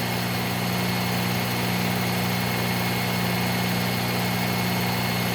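Electric belt knife sharpener's motor running steadily with a low hum and a faint constant whine while a knife edge is stropped on its fine leather belt to take off the burr.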